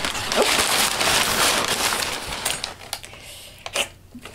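Brown packing paper crinkling and rustling as it is unwrapped from a knife in its sheath. The rustling stops a little past halfway, leaving a few short clicks.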